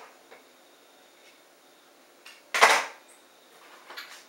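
A single short clatter about two and a half seconds in, a plastic fletching jig being set down and pushed aside on a wooden tabletop, with faint handling ticks around it.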